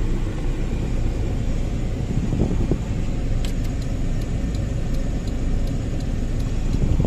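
Car cabin noise while driving: a steady low rumble of engine and road. A light, regular ticking starts about halfway through.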